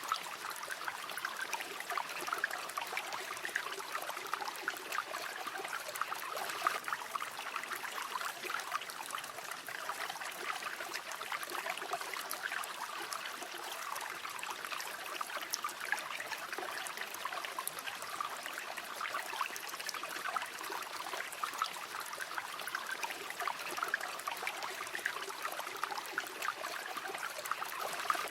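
Shallow river water flowing and trickling steadily, a continuous bubbling rush with small splashes flickering through it.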